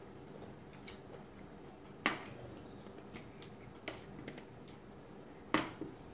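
A few sharp clicks while eating salad with metal forks, the loudest about two seconds in and again near the end, as the forks knock against the bowl and plate.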